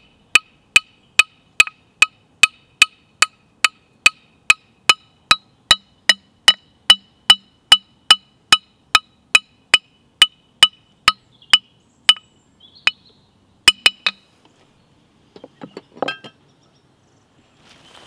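A metal baseball bat struck over and over with a small metal object, each strike a sharp ringing ping, evenly about two and a half a second. The strikes stop about 12 seconds in, two more follow near 14 seconds, then there is a brief scuffle of handling noise.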